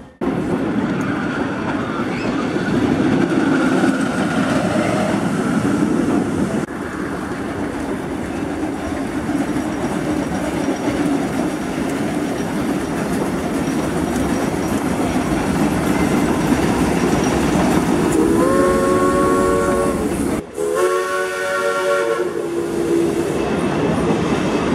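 Steam locomotive of an amusement-park passenger train running with a steady rumble, then near the end two blasts of its steam whistle, each about two seconds, sounding several notes at once.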